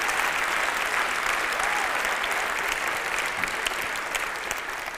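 Audience applauding after a poem, the clapping dying away near the end.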